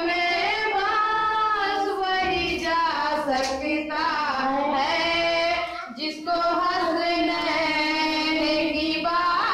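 A young woman singing an Urdu naat (Islamic devotional song) unaccompanied into a microphone, drawing out long held notes with wavering ornaments, with a short pause for breath about six seconds in.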